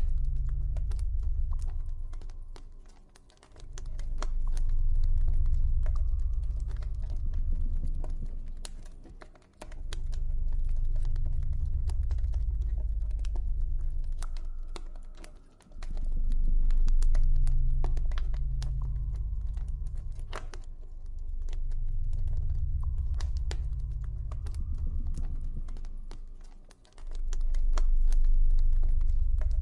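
Campfire crackling with scattered irregular pops, over a deep droning ambient tone that swells and fades every several seconds and briefly drops away four times.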